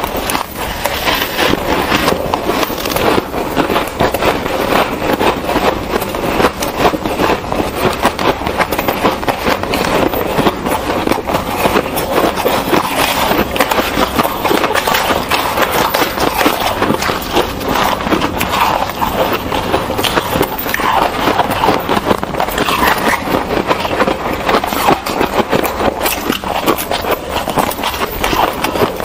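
Close-miked crunching and chewing of soft shaved ice: a dense, continuous run of crisp crackles as mouthfuls are bitten and chewed, with two eaters' sounds layered together.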